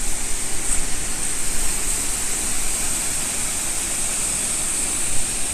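Steady rushing of a tall waterfall, a constant even roar of falling water.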